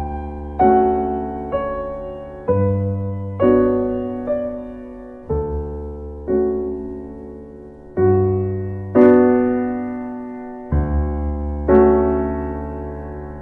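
Slow, gentle solo piano music: notes and chords struck about once a second, each left to ring and fade.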